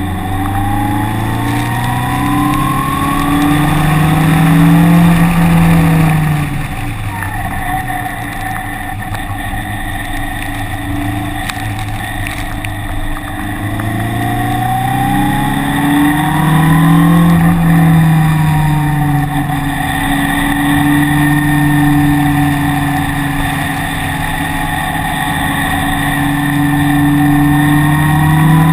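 Car engine being driven hard around a race track: it revs up over the first few seconds, drops back about six seconds in, pulls up again from about fourteen seconds, then holds a steady high note before climbing once more near the end.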